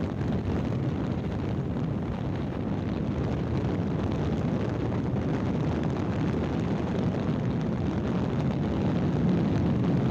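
Steady rushing wind over the microphone while riding along a road in an open vehicle, mixed with road and engine noise.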